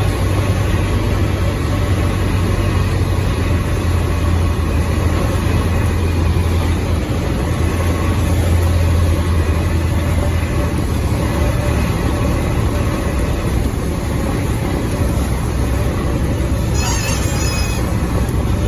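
Cessna 152's four-cylinder Lycoming O-235 engine and propeller droning in the cockpit over wind noise through the approach and landing. The drone eases off past the halfway point as power comes back for the touchdown, and a few brief high chirps come near the end.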